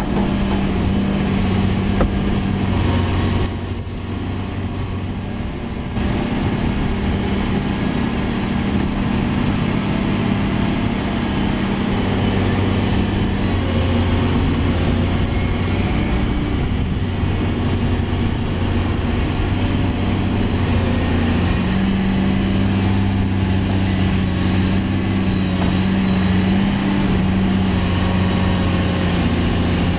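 Heavy diesel engines of a Cat 336D excavator and a Cat 740 articulated dump truck running steadily under work, a low continuous engine note that dips briefly about four seconds in.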